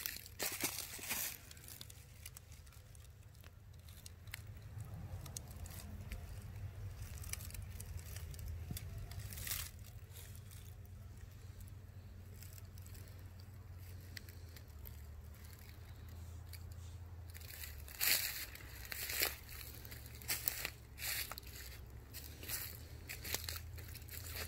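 Footsteps crunching through dry leaf litter on the forest floor: a few steps at the start, a single one about ten seconds in, then a run of steps from about eighteen seconds in. Between the steps there is a low, steady rumble.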